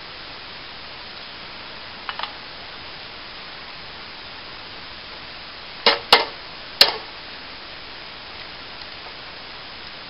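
Dry twigs snapping: two small snaps about two seconds in, then three loud sharp cracks close together about six to seven seconds in, over a steady hiss.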